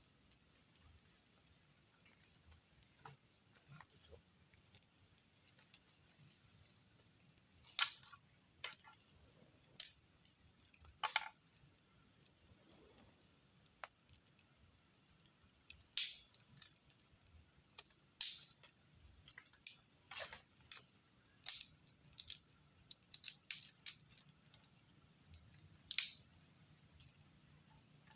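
Sharp, isolated snaps and cracks, about fifteen at irregular intervals, with faint short high chirps in between.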